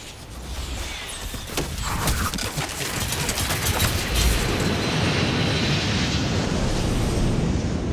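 A volley of arrows whooshing in and striking the ground, many impacts in quick succession for a few seconds, followed by a steady rushing noise.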